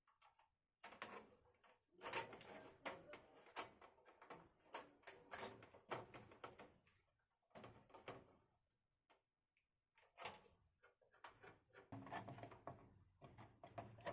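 Faint clicks, taps and rattles of small metal parts and a PC case being handled, a rapid string of short knocks through most of the time.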